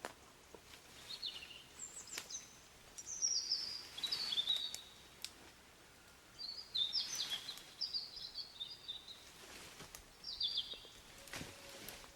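A songbird singing in short, rapid chirping phrases, repeated with pauses of a second or two, over quiet outdoor background noise. A few faint sharp clicks come in between.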